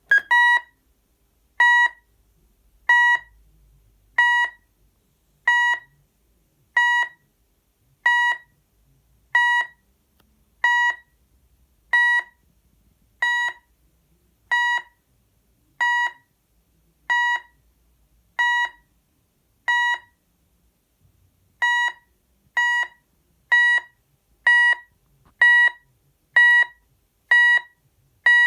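Texecom Veritas 8 Compact intruder alarm panel sounding a steady series of short electronic beeps, about one every 1.3 seconds; after a brief pause near the end the beeps come faster, about one a second.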